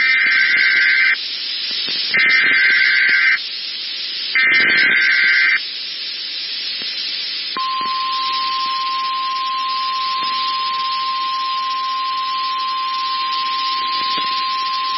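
NOAA Weather Radio Emergency Alert System alert over radio hiss: three short bursts of the warbling digital SAME header, each about a second long and a second apart, then the steady single-pitch weather radio warning alert tone begins about seven and a half seconds in and holds.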